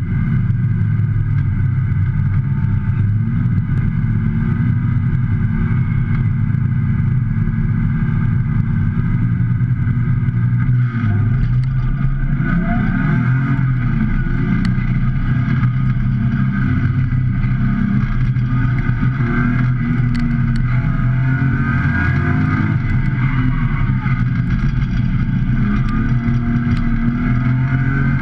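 Track-prepped BMW E30's engine heard from inside the cabin during a hard autocross run, running loud and steady with its pitch rising and falling as the car accelerates and slows through the course.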